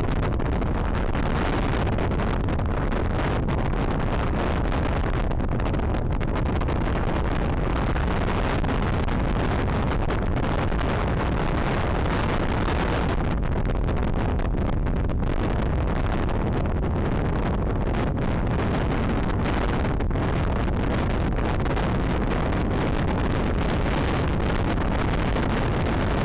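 Strong wind of over 22 knots buffeting the microphone aboard a racing sailboat: a steady, unbroken rushing noise.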